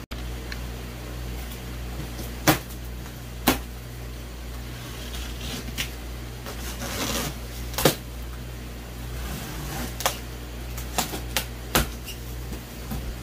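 Cardboard shipping box being handled and cut open: a series of sharp knocks and scrapes on the cardboard, with a longer rasping rip about seven seconds in, over a steady low hum.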